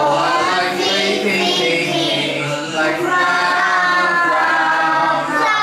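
Young children singing a song together in unison, holding long notes.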